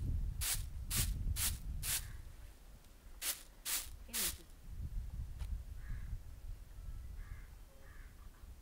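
Clothes being hand-washed in a basin of water: seven quick splashing strokes in two groups, four and then three. In the second half, crows cawing faintly several times.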